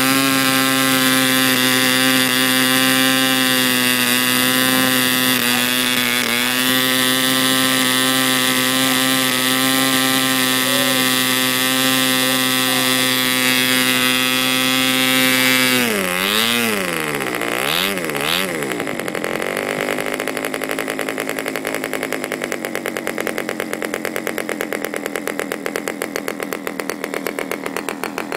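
Aurora K700 model aircraft diesel engine with an R/C throttle carburettor, running steadily at high speed. About halfway through, the throttle is closed: the pitch drops sharply, swings up and down a couple of times, and settles into a slow, evenly pulsing idle.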